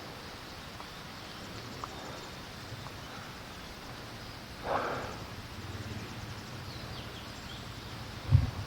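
Steady wind noise on the microphone in stormy weather, with a brief rustle about halfway and a sharp low buffet of wind near the end.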